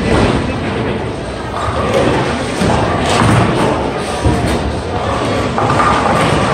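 Bowling alley din: bowling balls thudding onto and rolling down the lanes and pins clattering, with a sharp knock about four seconds in.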